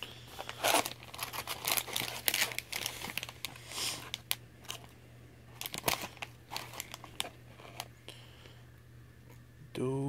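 Plastic candy packaging crinkling as packets are rummaged through and picked up, a run of sharp crackles that thins out after about seven seconds.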